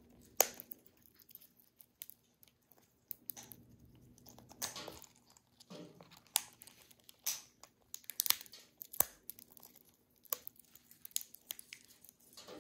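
Cockatoo cracking pine nut shells in its beak: sharp cracks and crunches at irregular intervals, roughly one a second.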